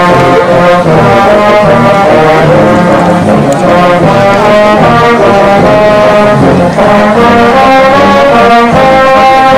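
Brass music playing: held notes that change every second or so over a lower moving line.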